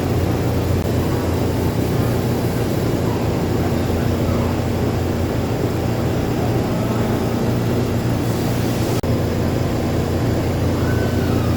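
Steady low hum of a powered Mori Seiki NH-6300DCG II horizontal machining center, with a brief hiss about eight seconds in that cuts off suddenly.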